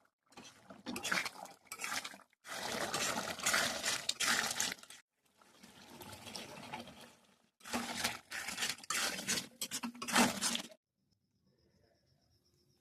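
Liquid splashing and pouring while cooking, in four short stretches that cut in and out, then near silence for the last two seconds.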